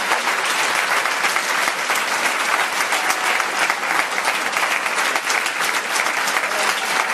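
Large theatre audience applauding steadily, a dense patter of many hands clapping at once.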